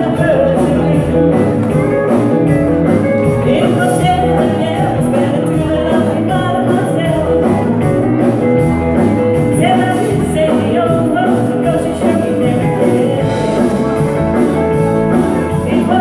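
Live country-rock band playing electric guitars, bass guitar, drums and keyboard, with a woman singing lead, over a steady drum beat.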